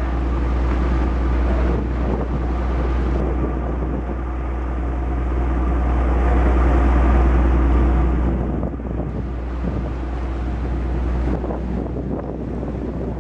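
Ferry engine running with a steady drone, mixed with wind buffeting the microphone; the wind rumble swells about six to eight seconds in.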